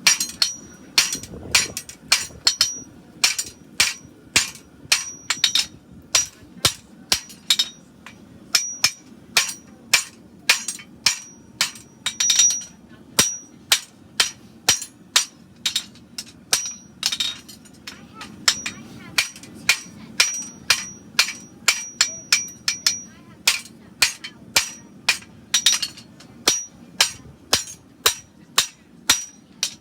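Farrier's hammer striking hot steel on an anvil in a steady run of blows, about two a second, many with a short high ring: a horseshoe being forged by hand, here the outside branch of a Shire horse shoe.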